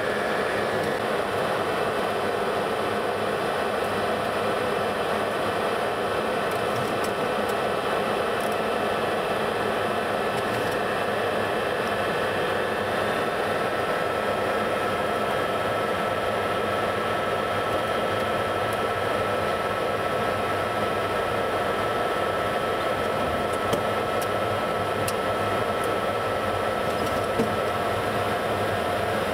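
Steady in-flight noise heard inside a Boeing 707-329C: its four Pratt & Whitney JT3D turbofans running and air rushing past the fuselage, an even rushing hiss with a faint steady whine above it.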